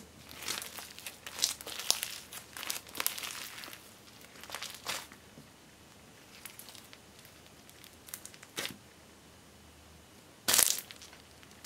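Hands squeezing and kneading floam slime, a slime packed with small foam beads, giving a run of irregular crinkly crackles and squishes. They come thick for the first few seconds, then thin out, with a short louder burst near the end.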